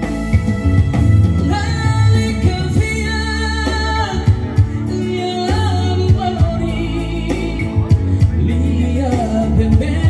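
A man singing into a microphone, amplified through a PA, over electric keyboard-band backing with a strong bass line. He holds long notes with a slight waver in pitch.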